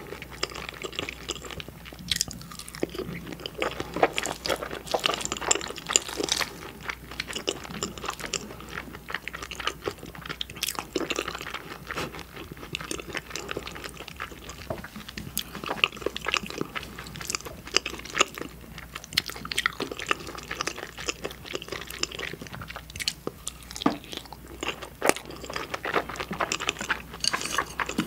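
A person chewing food close to the microphone, with many short, irregular mouth clicks.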